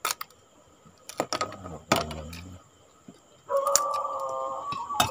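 Scattered clicks and cracks of boiled crab and shrimp shells being pulled apart by hand, then a steady, evenly pitched tone for about a second and a half near the end.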